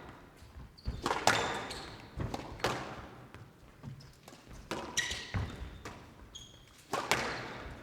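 Squash rally: the ball cracking off rackets and the court walls about once a second, each hit ringing on briefly, with a few short squeaks of court shoes.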